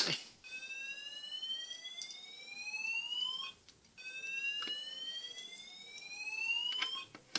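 Battery-powered miniature fire alarm sounder, set off by pushing its manual call point, sounding a rising whoop tone: each sweep climbs in pitch for about three seconds, breaks briefly and starts again, twice over.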